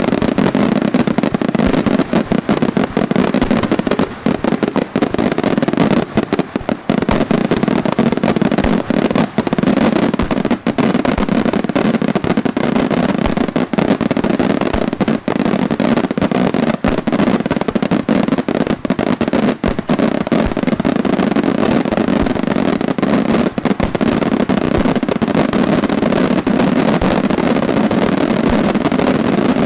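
Daytime fireworks display: a dense, continuous run of rapid bangs and reports.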